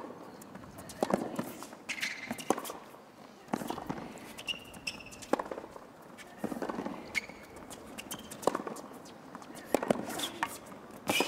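Tennis rally on a hard court: a racket strikes the ball about every one to one and a half seconds, with short high squeaks between some of the shots.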